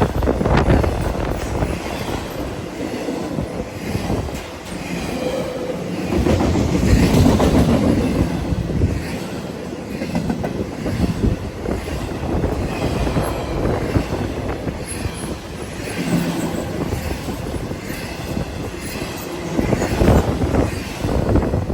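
BNSF freight train cars rolling past with a continuous rumble, the wheels clicking over rail joints and now and then giving a faint high squeal.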